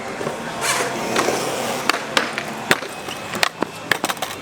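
Wheels rolling over concrete, followed by a run of sharp clacks and knocks of wheels and metal striking the park's surfaces.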